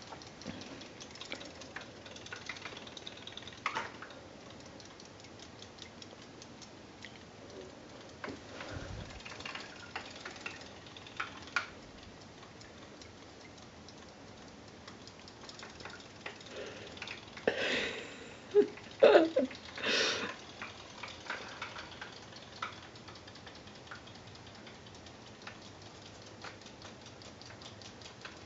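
Faint, rapid ticking of a Zuru Robo Fish toy's small battery motor as its tail flaps it through a sink of water. A few louder brief sounds break in about two-thirds of the way through.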